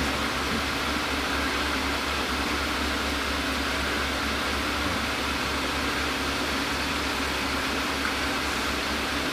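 Aquarium equipment running: a steady low hum under an even hiss, unchanging throughout.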